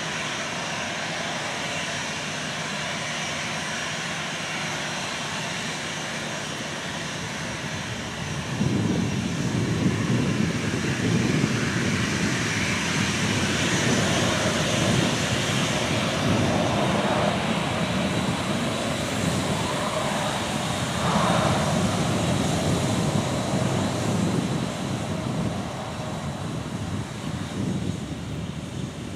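Airliner's engines rumbling as it passes, swelling sharply about eight seconds in and fading near the end.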